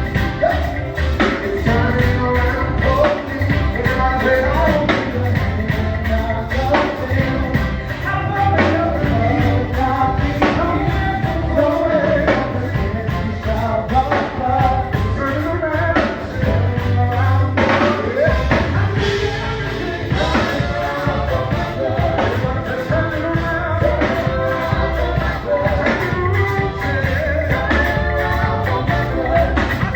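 A band playing with singing over a steady beat and heavy bass.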